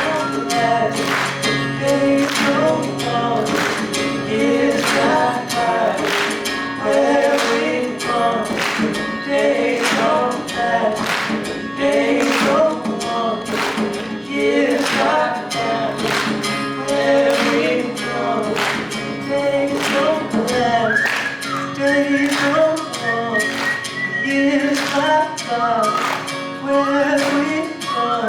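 Live song performance: a steady percussive beat under a sung melody, with no words clear enough to make out.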